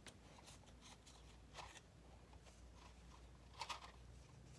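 Faint handling sounds of foam darts being pushed into a plastic Nerf blaster magazine, with soft clicks about one and a half and three and a half seconds in.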